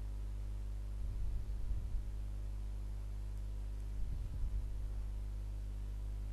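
Steady low electrical hum with a stack of overtones, with a few brief low rumbles about a second in and again about four seconds in.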